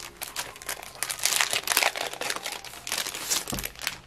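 Clear plastic packaging crinkling as a pack of paper is handled and unwrapped: a dense run of irregular crackles, loudest around the middle.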